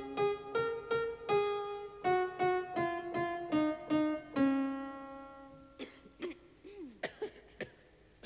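Grand piano playing a slow, simple melody one note at a time, about two notes a second, ending on a held note that fades out. Near the end a few short, quieter, scattered sounds follow.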